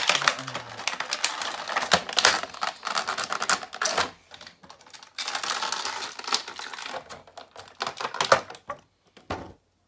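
Stiff plastic packaging crackling and clicking as an action figure is worked free of its plastic tray, with a brief lull about four seconds in; it stops just before the end.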